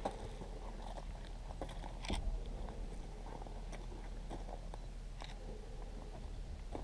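Footsteps crunching and scraping on loose, dry dirt close to the microphone, irregular, over a steady low rumble.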